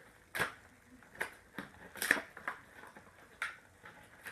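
Handling noises from plastic toy figures and their packaging: a few separate clicks and crinkles, the loudest about two seconds in.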